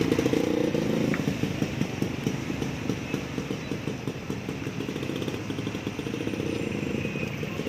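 Motorcycle engine running with a rapid pulsing beat, loudest in the first second and easing a little after, over street noise.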